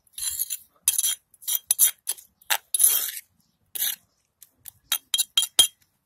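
Metal spoon scraping and clinking against the inside of a stone mortar in a quick, irregular run of short strokes, scraping mashed salsa down from the sides.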